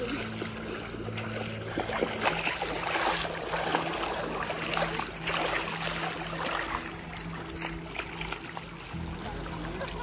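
Water splashing and rushing, busiest in the middle, over a low steady hum.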